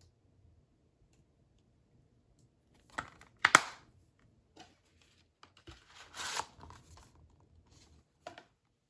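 4K Ultra HD disc packaging being handled: a sharp snap about three and a half seconds in, a longer rustling scrape around six seconds, and a short click near the end.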